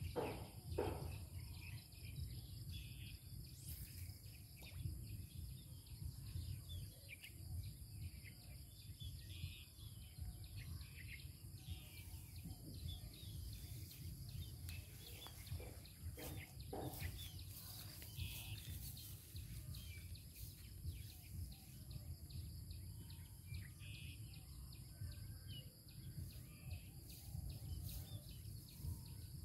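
Outdoor ambience: birds chirping on and off over a steady low rumble, with a few faint knocks near the start and again about two thirds of the way in.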